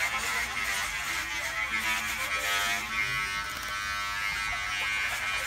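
Electric hair clippers buzzing steadily as they are run through thick hair on a man's head.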